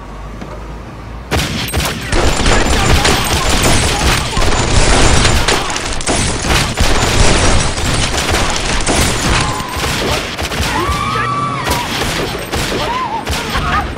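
Handgun fire in a gunfight: a dense volley of pistol shots in quick succession, starting about a second in and going on almost without a break.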